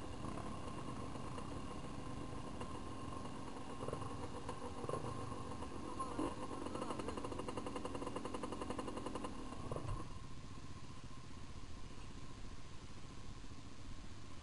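Off-road trail motorcycle engine running at steady revs, with a few short knocks. About ten seconds in, the engine sound drops to a quieter, lower level.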